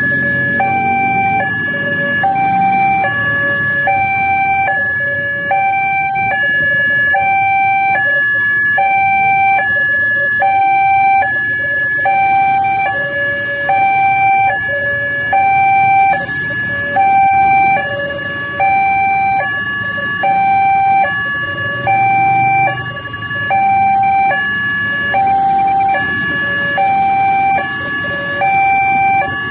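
Railway level-crossing warning alarm sounding its electronic two-tone chime, a higher and a lower tone alternating a little over once a second, warning that a train is approaching. Low running of idling motorbikes and cars lies underneath.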